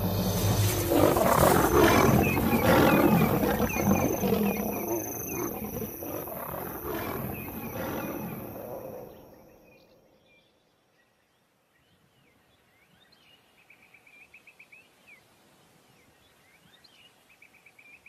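Lion roaring, a run of repeated deep calls that fades away after about nine seconds. Faint high chirping trills follow in the quiet near the end.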